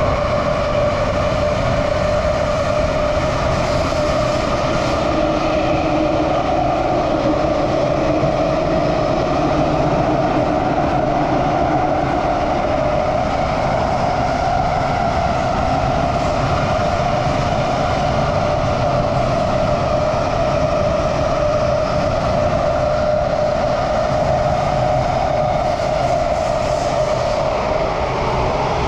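Inside a Singapore MRT train running between stations: a steady rumble of wheels and running gear with a motor whine. The whine's pitch rises slightly a few seconds in, holds, then eases down near the end as the train begins to slow.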